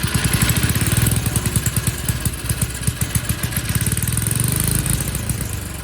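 Troy-Bilt tiller's small single-cylinder engine running just after starting, on its first run after sitting for years with a newly fitted carburetor and magneto; it runs steadily, not too bad for a forgotten engine.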